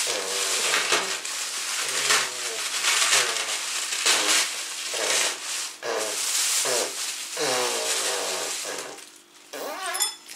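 Thin plastic bag crinkling and rustling steadily as a hand rummages in it, with a brief dip in the noise near the end.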